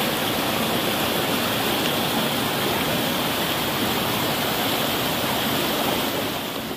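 Mountain stream rushing and splashing over granite boulders in small cascades, a steady rush of water that fades a little near the end.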